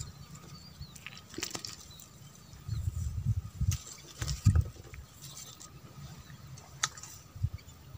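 Handling noises while a small freshly caught fish is taken off the hook: scattered low thumps and rustles, the loudest about four and a half seconds in, with a few sharp clicks.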